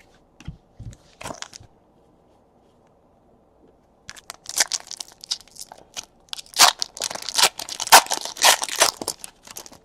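Trading-card pack wrapper being torn open and crinkled, after a few soft knocks near the start.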